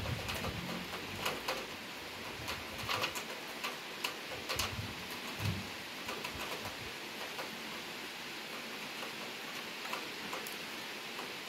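Heavy rain shower falling steadily, with many sharp taps of drops striking something close by. A few low, muffled bumps come in the first half.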